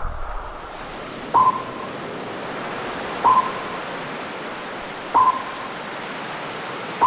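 A short beep-like tone repeating about every two seconds over a steady rushing noise like surf.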